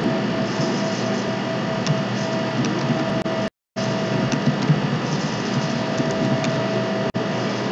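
Steady room noise: a constant hum and hiss with a faint steady tone and a few scattered light clicks. The sound cuts out completely for a moment about three and a half seconds in.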